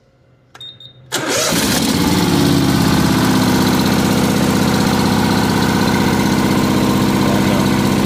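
A click and a short high beep, then the Honda 2417 riding mower's engine starts about a second in and runs steadily.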